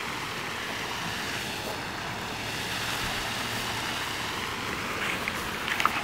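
Steady outdoor noise of wind and water lapping at the lake's edge, with a few faint short ticks near the end.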